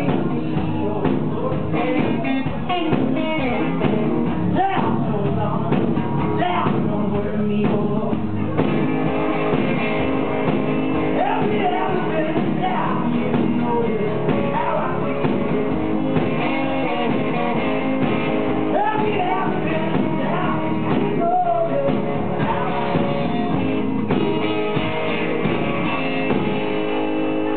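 Live blues from a one-man band: a man singing over his own instrumental accompaniment, with long held tones joining in about a third of the way through.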